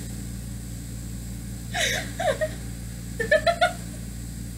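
Two young women laughing in two short bursts, the second a quick run of four or five breathy pulses, over a steady low hum.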